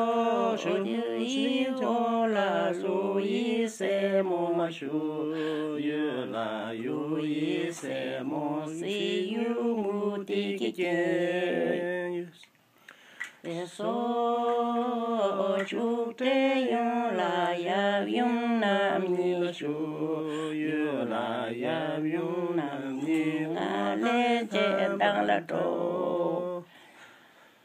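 One voice singing a Tibetan song unaccompanied, in long, wavering phrases. It breaks off for a pause about halfway through and again near the end.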